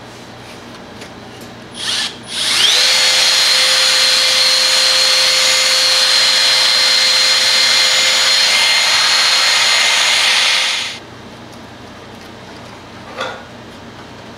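Cordless drill spinning a foam buffing pad against a plastic headlight lens: a short blip about two seconds in, then a steady whine that winds up and runs for about eight seconds before stopping. A single short knock near the end.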